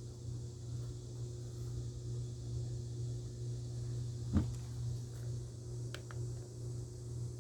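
Steady low hum with a thin hiss from a weather radio receiver carrying dead air, with one sharp click about four seconds in and two faint ticks a moment later.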